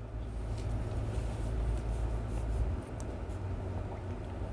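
Stylus writing on a tablet screen: faint scratches and light taps as handwriting is drawn, over a steady low hum.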